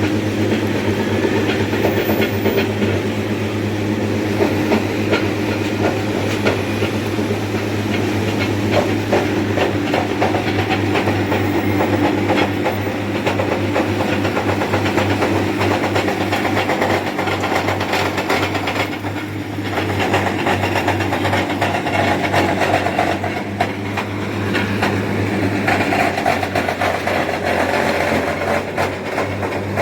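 A wood chipper running, with a steady motor hum under a constant irregular clatter and rattle of wood being chipped. It eases briefly about two-thirds of the way through.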